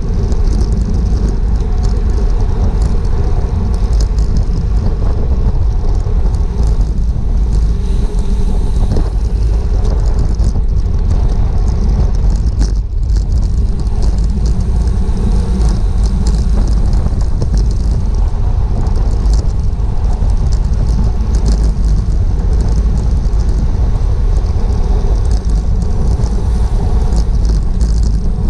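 Wind buffeting the microphone of a GoPro on a bicycle being ridden in a criterium race: a steady, loud, low roar.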